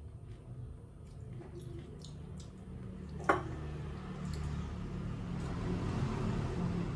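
Eating rice and fish curry by hand: fingers working the food on a plate and chewing, with one sharp click a little over three seconds in.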